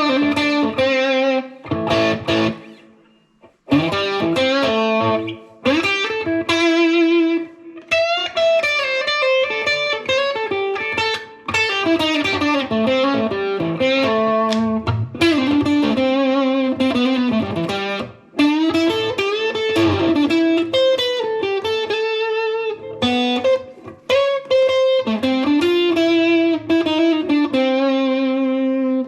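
Electric guitar (a Fender Deluxe Player's Stratocaster) played through a Fender Mustang GTX100 modelling amp on a high-gain preset. It plays a lead line of sustained notes with vibrato and pitch bends, with a short break about three seconds in.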